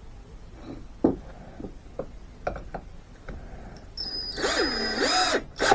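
Cordless drill-driver running briefly to drive a small screw through a leather strap into a wooden paddle, its motor whine dipping and rising in pitch twice as the trigger is worked. Several light knocks from handling the parts come before it.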